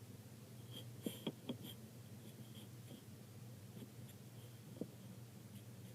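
Faint scratching of colouring on paper, with a few light taps about a second in and one near the end.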